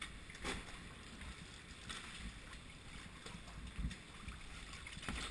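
Kayak paddle strokes splashing in calm sea water, a few separate dips over a low wash of sloshing water.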